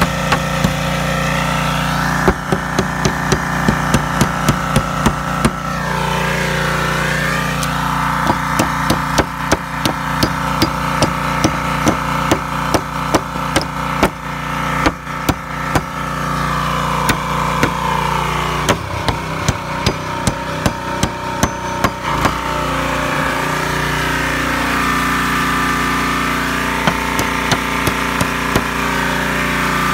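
Hammer driving nails into a wooden fence board: runs of quick, sharp strikes, about three a second, with short pauses between nails and a few last taps near the end. A steady droning hum runs underneath.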